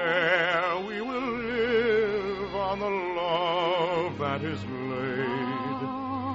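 A male baritone singing a slow, romantic operetta melody, holding long notes with wide vibrato over sustained orchestral accompaniment.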